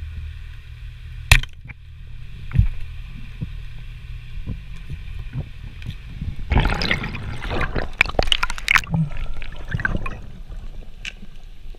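Underwater sound picked up through a camera housing during a freedive: a steady low water rumble with scattered sharp clicks and knocks, and a dense stretch of crackling and rattling from about six and a half to nine seconds in.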